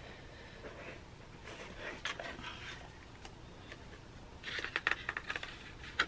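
Quiet handling of packaging: a card and paper insert lifted out of a cardboard box and turned over by hand, with light taps and a short patch of quick paper rustling about four and a half seconds in.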